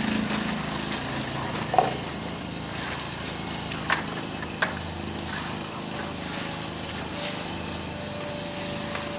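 An engine running steadily at a constant pitch, with three sharp knocks about two, four and four and a half seconds in.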